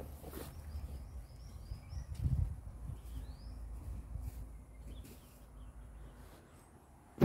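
A small bird chirping: a quick series of five or six short arched notes in the first two seconds, and one more a little after three seconds. Underneath is a steady low rumble, with a dull low thump about two seconds in and a sharp click right at the end.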